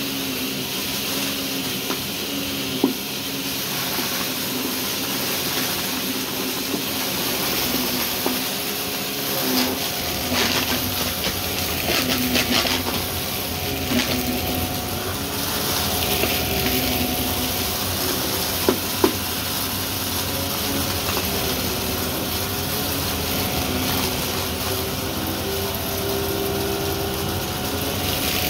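Shark Navigator vacuum cleaner running with its brushroll spinning: a steady motor hum and rushing air with a slightly wavering whine, broken by a few sharp clicks and crackles of debris being sucked up, two close together about nineteen seconds in.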